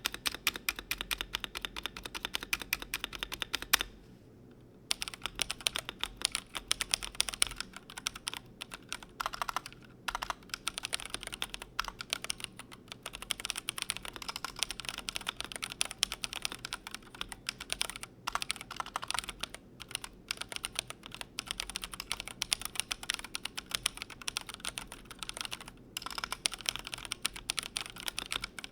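Continuous fast typing on a Glorious GMMK Pro mechanical keyboard: a dense run of key clicks and clacks, with a short pause about four seconds in.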